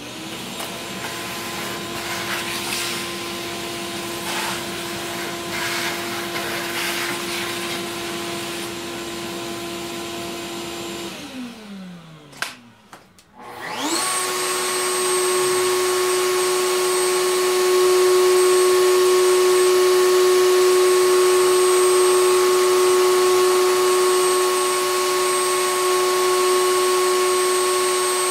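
Shop vacuum running steadily, then spinning down with a falling pitch about 11 seconds in. About 14 seconds in, a high-speed motor, the router in the router table, starts with a quick rising whine and runs steadily at full speed, louder than the vacuum.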